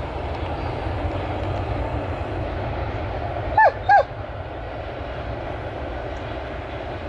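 A dog giving two short, high yips in quick succession, each falling in pitch, a little past halfway through, over a steady low background rumble.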